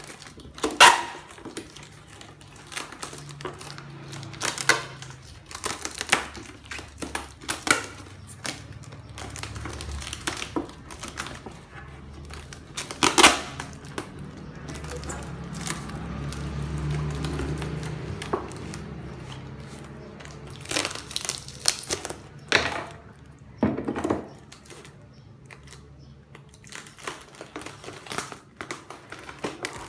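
Crinkling and rustling of a kraft-paper package and a stack of thin black plastic plant pots being handled and pulled apart, with irregular sharp plastic clicks and knocks, the loudest about a second in, near the middle and a few times near the end.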